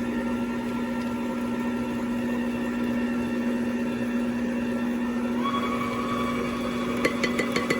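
Electric mixer running steadily, blending thick cake batter. Its tone changes about five and a half seconds in, and a few quick clicks come near the end.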